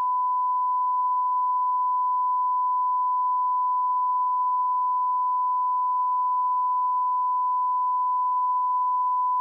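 A 1 kHz sine-wave test tone: one pure, unbroken tone held at a constant pitch and level.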